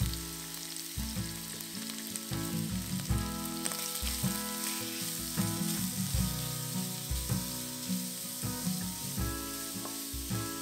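Chopped raw shrimp sizzling in hot oil in a stainless steel wok, stirred with a wooden spoon. Soft background music plays underneath.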